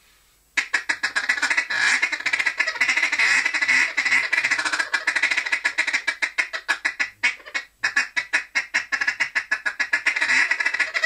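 Cadence duck call blown in fast feeding chatter: a rapid, nearly unbroken run of short clipped notes, the 'tiki-tiki' and 'didit' feeding sounds mixed together, imitating ducks feeding. It starts about half a second in and pauses briefly past the middle.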